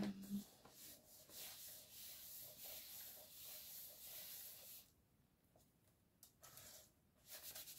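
Hands rubbing and pressing layered paper card panels flat to stick them down: a faint, soft rustling of palms sliding over paper.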